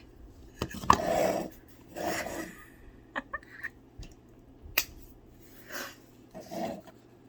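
Light clicks and knocks of a plastic figure being handled and set down on a surface, with a couple of short breathy bursts about one and two seconds in.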